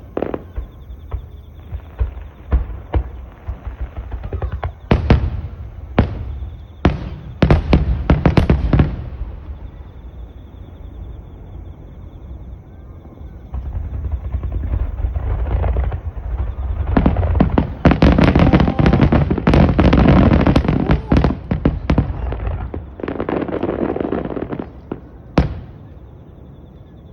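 Fireworks display: a run of sharp bangs and low booming shell bursts, then a dense stretch of rapid crackling about two-thirds of the way through, and one last sharp bang near the end.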